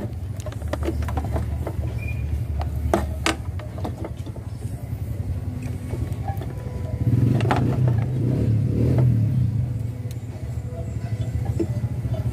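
A steady low rumble, louder for a couple of seconds after the middle, with scattered light clicks and knocks.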